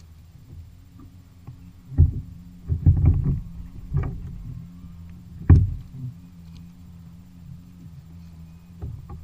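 Several heavy thumps and knocks on a plastic fishing kayak's hull and deck: one about two seconds in, a cluster just after, and the loudest at about five and a half seconds. A low steady hum runs underneath.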